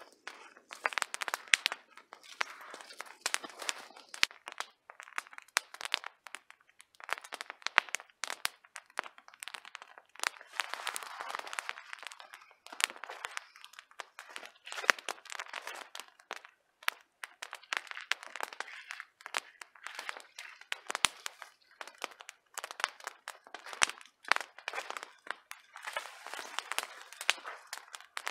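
Spruce boughs rustling and their twigs crackling and snapping as they are handled and draped over a wooden pole tripod, with footsteps crunching on snowy ground.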